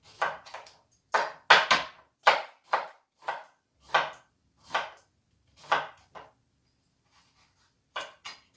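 Knife chopping beets into thick pieces on a cutting board: a series of sharp chops, about one or two a second, then a pause of over a second and two more chops near the end.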